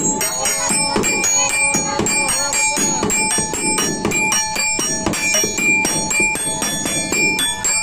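Background music made of quick, evenly repeated ringing notes at a few fixed pitches, over a low, busy noise.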